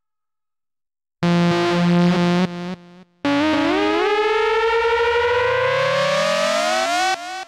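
Loud, distorted electronic synthesizer sound: a held buzzing tone cuts in about a second in and breaks off, then after a short gap a long, slowly rising pitch glide that stops abruptly near the end.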